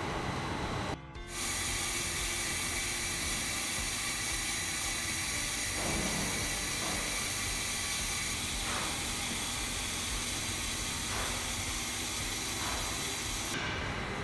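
Steady industrial plant noise: a rushing hiss of water spilling over the weirs of a concrete settling pond, with the whine of an electric pump motor running. It drops out briefly about a second in.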